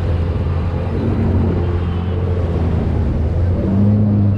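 Jet ski engine running steadily with a loud low hum, its pitch rising slightly near the end.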